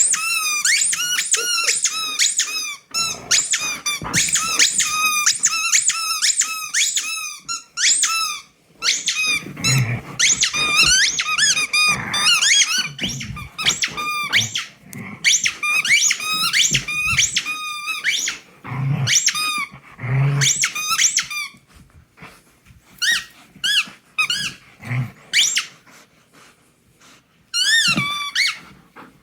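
A dog's squeaky toy squeaking over and over in quick runs, several high squeaks a second, as the dog bites and works it. The squeaking thins out with pauses in the last third.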